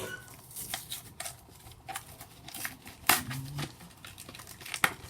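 Foil wrapper of a Yu-Gi-Oh Duelist Alliance booster pack crinkling and tearing as it is opened, a string of sharp crackles and rustles.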